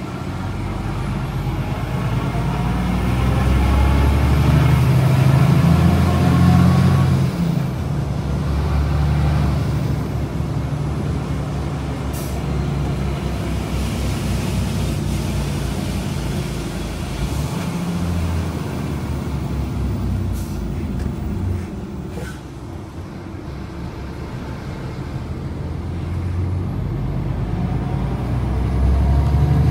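DAF XF 530's Paccar MX-13 six-cylinder diesel engine pulling under load, its pitch rising as the truck accelerates and dropping at an upshift about seven seconds in. It eases off briefly past twenty seconds, then climbs in pitch again near the end.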